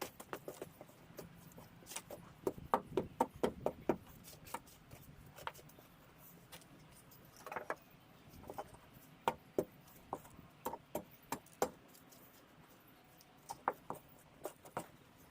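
Light, irregular knocks and clicks of decking timber and tools being handled. A quick run of them comes about three seconds in, and another cluster comes later.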